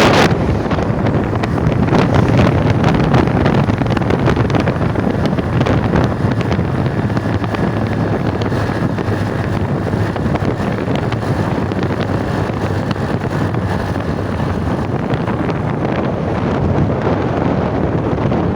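A vehicle moving along a road: steady engine and road noise, with wind rushing over the microphone.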